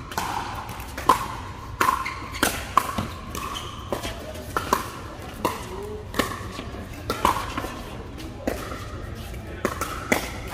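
Pickleball paddles hitting the plastic ball in sharp, irregular pops, about one or two a second, from this rally and the courts around it, echoing in a large indoor hall. Players' voices can be heard faintly in the background.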